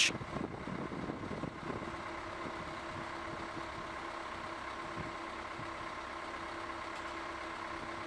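Steady mechanical hum with a constant pitch, with a deeper tone that settles in about two seconds in.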